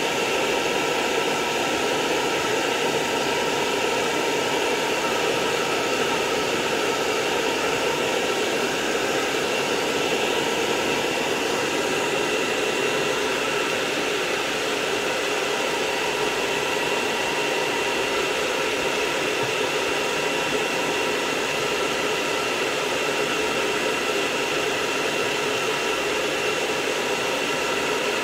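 Blow dryer running steadily on a dog's coat: an even rushing hiss with a faint steady whine in it.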